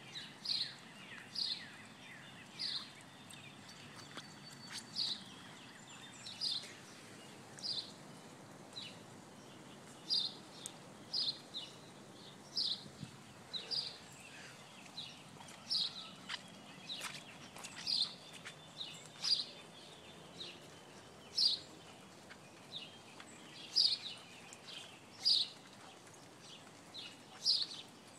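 A bird calling with short, high chirps repeated about once every second or so, over a faint steady background hiss.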